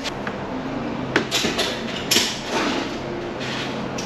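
Ratchet strap being cranked tight, a string of irregular ratcheting clicks and rasps over a steady low hum, drawing the axle back so the leaf spring's locator can drop into its hole.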